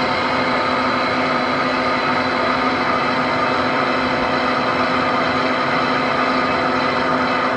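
Large metal lathe running steadily while machining the hub of a bronze ship propeller. It makes a steady machine drone with several steady tones on top, unchanging throughout.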